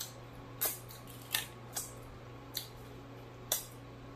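Wet mouth smacks of a person licking and sucking food off their fingers: about six short, sharp smacks spread over the few seconds.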